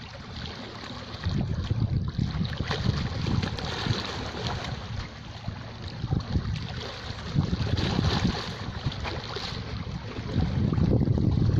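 Sea waves washing and surging, with wind rumbling on the microphone. The surge grows louder again near the end.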